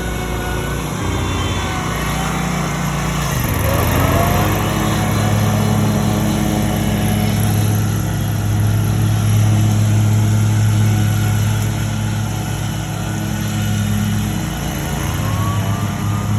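Small gasoline engines of lawn equipment running steadily, with one revving up about four seconds in and again near the end.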